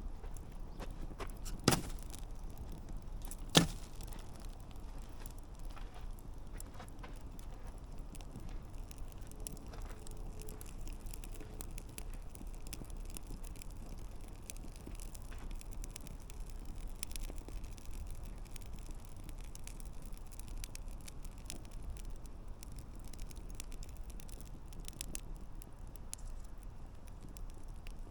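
Wood campfire burning and crackling: a soft steady hiss of flames with scattered small snaps, and two sharp, loud pops, the first about two seconds in and the second about two seconds later.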